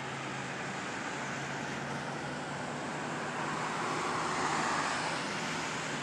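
Road traffic noise over a steady low hum, with a passing vehicle growing louder and fading about four to five seconds in.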